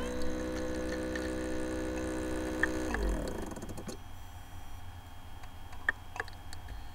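Sci-fi computer-interface sound effects: an electronic power-up drone holds a steady chord, then slides down in pitch and dies away about three seconds in. A low hiss follows, with a few sharp digital clicks, the loudest near the end.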